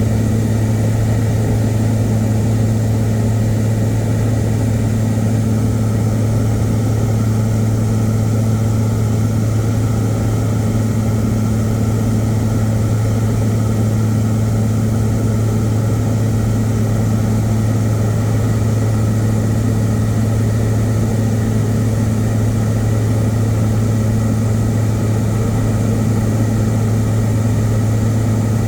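Light aircraft's piston engine and propeller running at steady cruise, heard from inside the cabin as a loud, unbroken low drone with an even hum.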